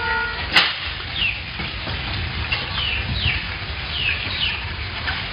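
A dense mass of snakes writhing in a shallow pool, heard as a steady wet rustling hiss. Short falling bird chirps come every second or so, and a sharp click sounds about half a second in.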